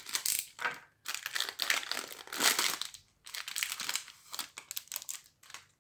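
Crinkling and rustling as an opened pack of football trading cards is handled, in irregular bursts with short pauses.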